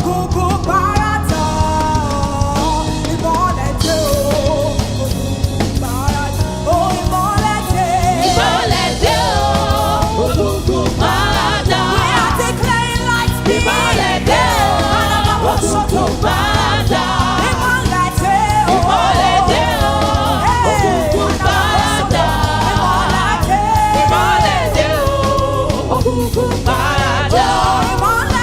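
Gospel song with a lead singer and backing voices over a band with bass and drums, playing steadily.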